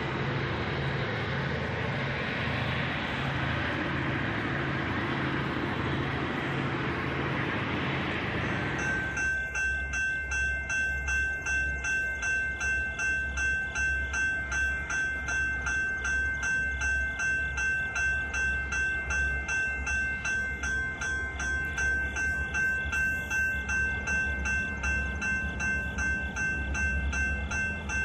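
EMD SD35 diesel locomotive with its turbocharged 16-cylinder 567 engine working as it approaches at the head of a freight train. About nine seconds in, a bell starts ringing in a steady, even rhythm over the engine, about two to three strokes a second.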